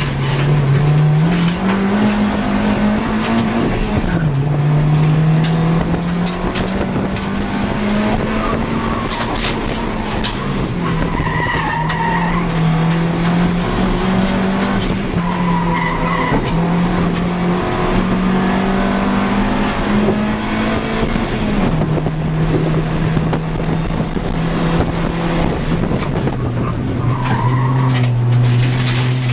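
A 2002 Honda Civic Si's engine, heard from inside the cabin at full race pace. Its pitch climbs and drops several times through gear changes. Short tyre squeals sound in the corners, about a third of the way in, around halfway and near the end.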